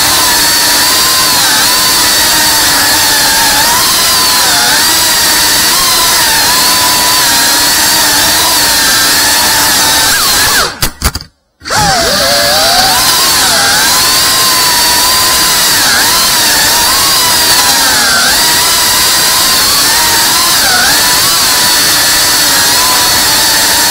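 Cinewhoop FPV drone's motors and ducted propellers whining, the pitch wavering up and down with the throttle. About eleven seconds in, the sound cuts out for a moment, then the whine rises back.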